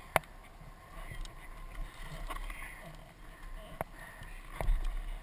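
Wind rumbling on a helmet camera's microphone, with three sharp knocks: a loud one just after the start, another near four seconds and a third near the end, where the rumble also grows louder.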